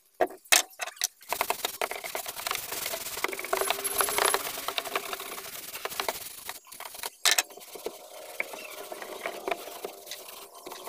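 Brush scrubbing the car's plastic boot-sill trim in quick, scratchy back-and-forth strokes, with a few sharp clicks near the start and a couple of louder knocks about seven seconds in.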